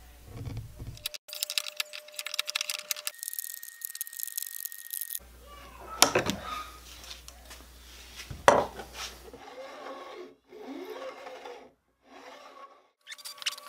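Short cuts of guitar fret work on a maple neck. Sharp snips of end nippers trimming the fret-wire overhang come about six and eight and a half seconds in. Rubbing, filing strokes follow as the fret ends are dressed along the fretboard edge.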